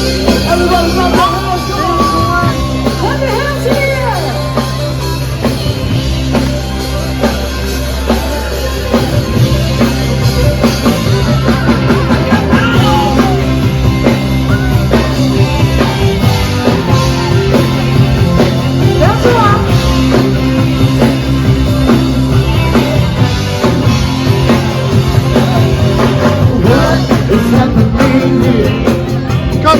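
A rock-style song with singing over a steady bass line.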